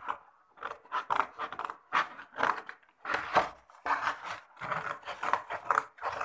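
A large sheet of cardboard being lifted, bent and slid across a tabletop: irregular scraping and rustling in short bursts.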